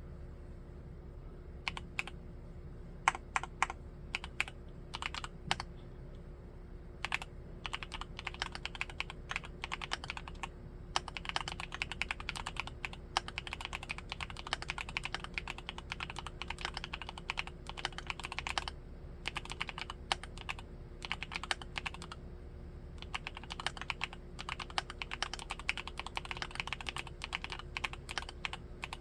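Typing on a Createkeebs Luminkey75 mechanical keyboard with Gateron Baby Raccoon linear switches. A few scattered keystrokes come first, then fast runs of typing broken by short pauses.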